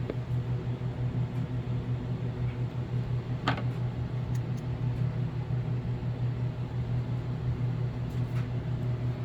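Steady low machine hum with a fast flutter, like a fan, and one short click about three and a half seconds in.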